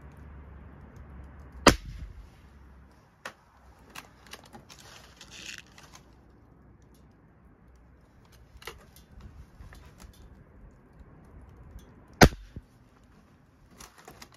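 A .177 Airhawk break-barrel spring-piston air rifle, its transfer port freshly bored out, fired twice about ten seconds apart, each shot a sharp crack. Fainter clicks and handling noise come between the shots.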